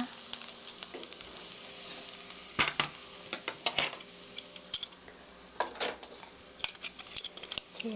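Stir-fried onions still sizzling in a hot frying pan just taken off the gas, the sizzle fading after the first couple of seconds. From about two and a half seconds in there are scattered knocks and clicks as the pan is set down and handled.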